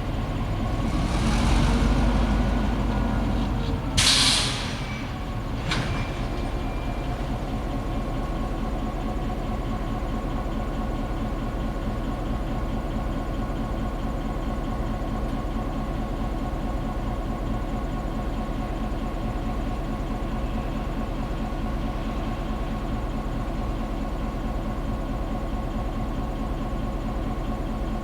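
EMD GP9 diesel-electric locomotive's 16-cylinder two-stroke 567 engine running steadily, louder for the first few seconds. About four seconds in there is a short sharp hiss of air followed by a click, and the engine then settles to a steady idle.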